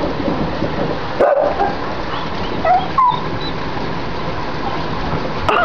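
A dog giving a few short high cries over the steady noise of heavy, wind-blown rain.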